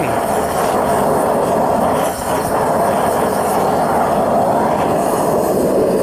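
Propane-fired melting furnace running, its burner a loud, steady rush of burning gas.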